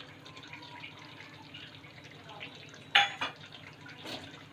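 Lemon juice poured into simmering chicken gravy, a faint trickle with small drips, and two sharp clinks about three seconds in.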